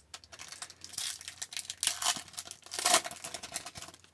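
A foil trading-card pack (2019-20 Upper Deck Series 1 hockey) being torn open and crinkled in the hands, with louder crackling tears about one, two and three seconds in.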